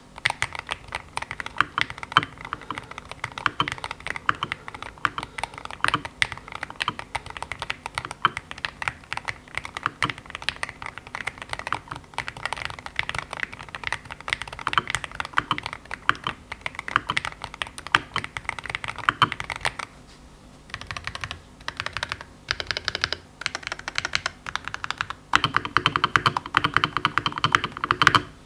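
Typing on a Keychron J8 HE 8K keyboard with factory-lubed Lime linear Hall Effect switches and ABS Cherry-profile keycaps: a fast, continuous clatter of keystrokes for about twenty seconds, then a few short bursts with brief pauses, and a denser, louder run near the end.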